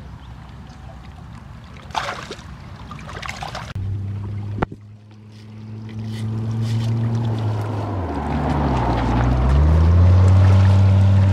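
Small boat engine running steadily from about four seconds in, growing louder, its pitch dipping once then rising again near the end. Before it, water sloshing and handling noises, with one sharp click.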